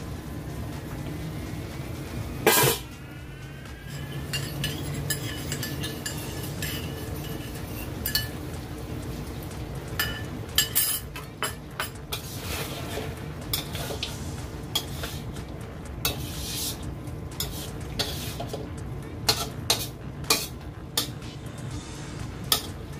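Metal spatula scraping and clinking against a steel wok as it stirs braised spare ribs, beancurd sticks and mushrooms while a cornstarch slurry thickens into gravy. One loud clank comes about two and a half seconds in, and the clinks come thicker and faster in the second half.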